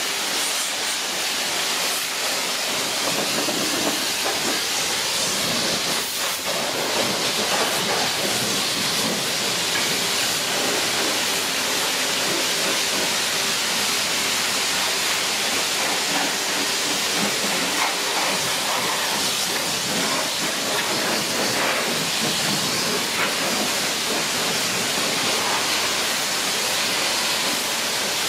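Pressure-washer wand spraying high-pressure water over a car's bodywork: a steady hiss.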